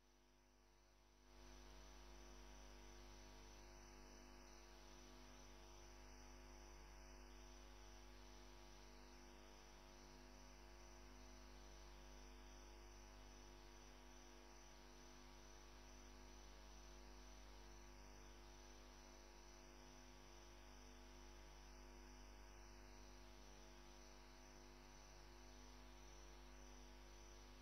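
Near silence: a faint, steady electrical mains hum with a low drone, coming in about a second in.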